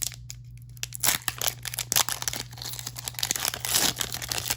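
Foil wrapper of a Pokémon TCG mini booster pack being torn open and crinkled, with a run of irregular crackles starting about a second in.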